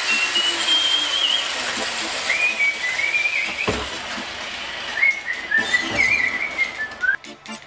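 Someone whistling a tune in three short phrases over a steady hiss, with a single sharp knock about halfway through; the sound drops away suddenly near the end.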